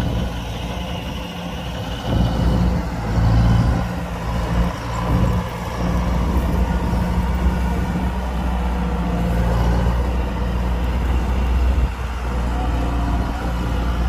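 Kubota combine harvester running: a steady low diesel engine hum with mechanical clatter, rising and falling in loudness.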